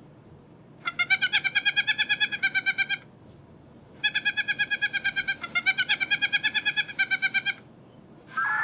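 Electronic bird-twitter sound effect from the YOS-211 sound-effects device: rapid, evenly spaced synthetic chirps, about ten a second. They come in two bursts, of about two and three and a half seconds, with a short pause between.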